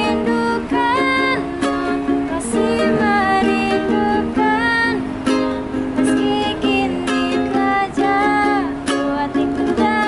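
A young woman singing a melody with long held notes over a strummed ukulele.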